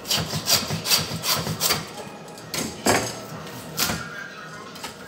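Butcher's hand bone saw cutting through lamb bone, its blade rasping back and forth. There is a quick run of strokes, about four a second, for the first two seconds, then a few slower, separate strokes.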